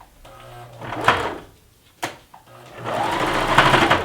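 Baby Lock Zeal sewing machine stitching in two runs: a short one, then a sharp click about two seconds in and a longer steady run. The stitching goes back and forth to lock the seam where the elastic is sewn in.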